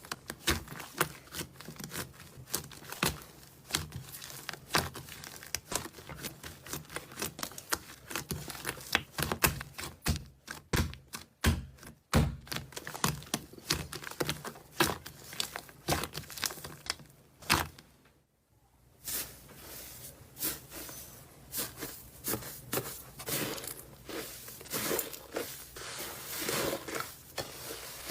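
Slime being squeezed and stretched by hands close to the microphone, making many sharp crackling pops and clicks. It stops briefly about two-thirds in, then resumes as denser, softer crackling.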